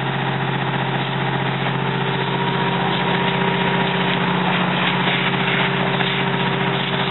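A fire engine's motor running steadily, a constant low drone with a noisy wash over it, as when the apparatus is pumping water to the hose lines.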